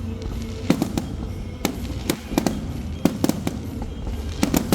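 Fireworks bursting: about a dozen sharp bangs at uneven intervals, some coming in quick clusters, over a steady low rumble.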